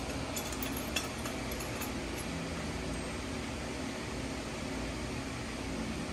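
Steady ventilation hum, with a few light metallic clinks in the first second as a steel axle and its carrier are handled.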